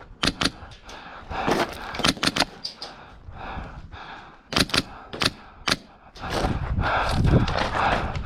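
Airsoft guns firing single shots, sharp pops in small clusters of two or three. From about six seconds in, a louder rustling noise with low thuds takes over.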